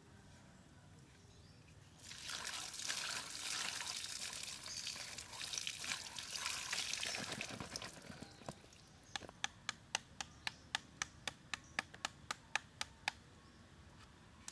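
Water pouring and splashing for several seconds. Then a knife chops rapidly into a peeled green papaya, about four sharp taps a second, as the flesh is scored for shredding.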